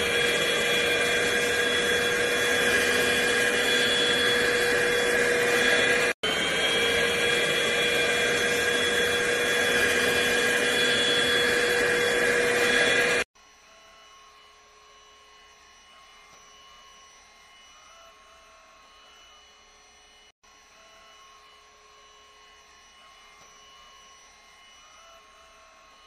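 Cordless stick vacuum cleaner running at constant speed: a loud, steady rush of suction air with a high motor whine, broken by a short gap about six seconds in. About halfway through it drops suddenly to a much fainter, steady vacuum hum with a thin whine.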